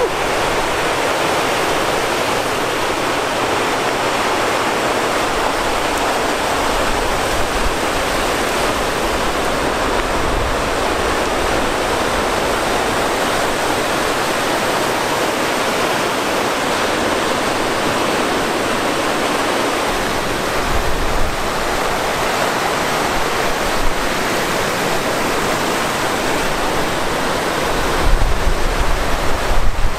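Steady rushing of wind and Lake Superior surf, with a few low gusts buffeting the microphone, the loudest near the end.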